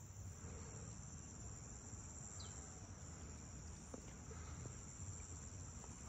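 Crickets calling faintly in one continuous high-pitched drone, with a few faint ticks.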